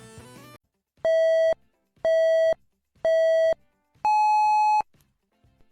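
Electronic beep tones, four about a second apart: three at the same middle pitch, then a fourth higher and slightly longer, the pattern of a countdown start signal.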